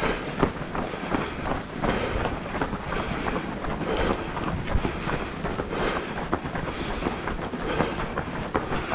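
Running footsteps on pavement: many quick, irregular footfalls from a group of runners, heard from a camera worn by one of them, with wind buffeting the microphone.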